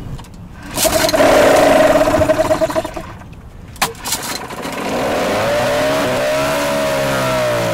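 Small outboard motor being pull-started: it runs loudly for about two seconds and cuts out, then catches again after another pull and keeps running, its pitch rising and then easing back down.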